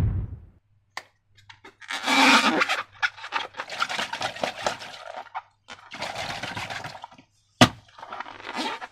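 Slime being squeezed and worked by hand: several bursts of wet, crackly squishing, with short clicks between them and one sharp click near the end.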